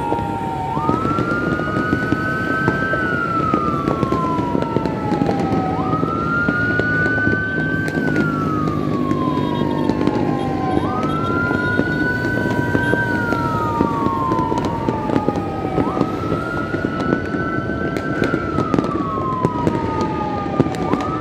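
Emergency vehicle siren wailing, each cycle rising quickly and then falling slowly, about every five seconds. Underneath is a steady din of city noise with scattered sharp firecracker pops.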